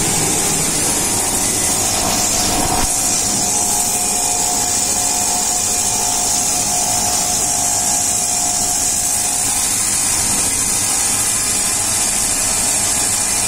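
A CNC roll grinding machine's wheel is grinding a rotating grooved TC roll. It makes a steady high grinding hiss with a fainter steady tone underneath.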